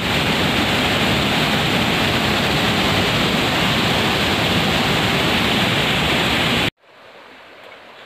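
Stream water rushing and splashing over rocks in a steady, loud, unbroken rush that cuts off suddenly near the end, leaving only a quiet outdoor background.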